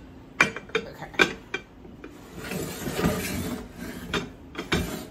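A lidded casserole dish being pushed onto the wire rack of a countertop oven: a few sharp clinks and knocks, then a scraping rattle of dish on rack, and one louder knock near the end.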